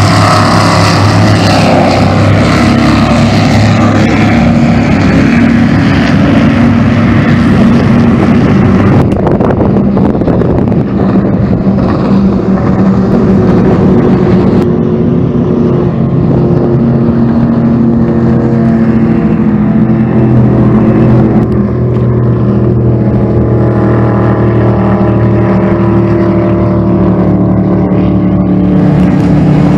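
Offshore powerboats' V8 inboard engines running hard at speed as the boats pass, one after another. The exhaust note is loud and steady, and its pitch shifts from boat to boat.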